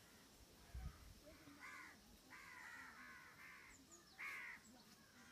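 Faint, distant crow cawing, a series of about five harsh caws, the last the loudest. A brief low bump about a second in.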